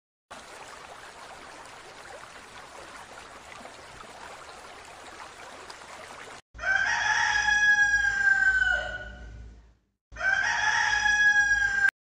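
Faint steady outdoor background, then a loud, drawn-out animal call given twice, the second cut off abruptly.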